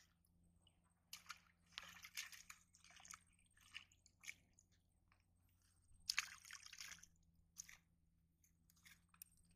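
Faint splashing and squelching of shallow pond water stirred by hands and a wet cloth bag, in short bursts about a second in and again about six seconds in, with a few single soft clicks between.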